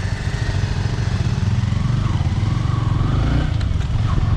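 Motorcycle engine running steadily, with a fast, even pulse of engine firing.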